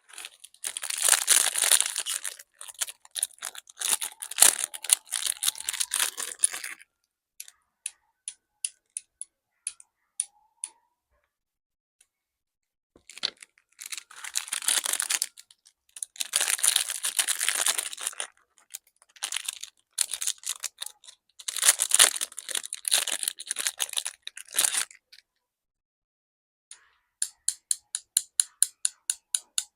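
Toy packaging being torn and handled in several crackly bursts, with pauses and scattered clicks between them. Near the end comes a quick run of sharp clicks, about four a second.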